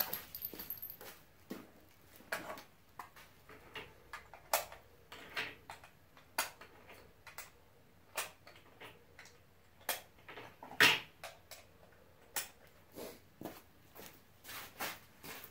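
Hands working gear at the bench: a run of sharp clicks and small knocks, roughly two a second, with one louder knock about eleven seconds in.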